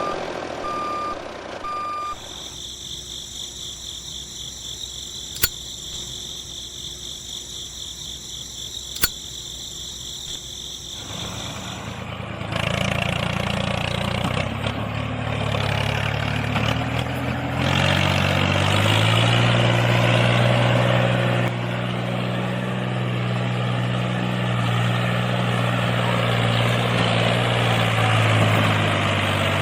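Reversing beeps for about two seconds, then a steady high electronic whine broken by two sharp clicks. From about twelve seconds in, a truck engine runs, its pitch shifting now and then, as from a toy construction vehicle's motor and sound effects.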